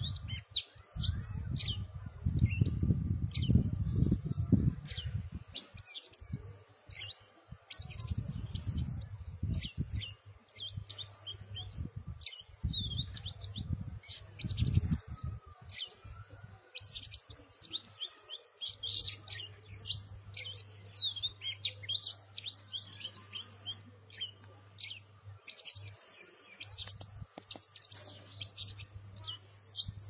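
Male oriental magpie-robin singing: a long run of varied, clear whistled phrases, the short notes sliding up and down, with brief pauses between phrases. A low rumble comes and goes in the first half, and a faint steady low hum runs under the later part.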